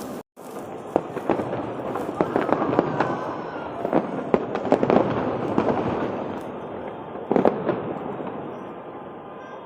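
Fireworks display: a rapid string of sharp bangs and crackling shell bursts, with a cluster of louder bangs about seven seconds in. The sound cuts out briefly just after the start.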